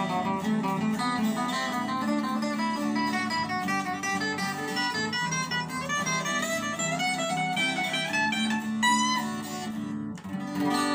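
Instrumental acoustic guitar music: quick runs of plucked single notes climbing and falling over held lower notes, with a chord rung out at the very end.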